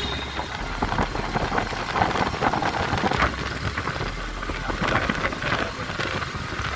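Motorcycle riding along a road: wind buffeting the microphone over the engine and tyre noise.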